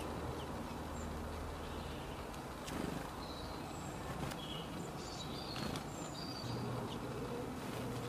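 Garden ambience: a low steady hum under scattered short, high bird chirps and a few light clicks. The hum grows louder over the last second or two.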